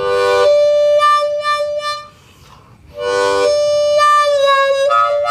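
Diatonic harmonica played with hand cupping (wah-wah): two short phrases, each opening on a chord that narrows to one held note whose tone opens and closes as the hands cup and uncup. In the second phrase the note bends down, then steps up to a higher note near the end.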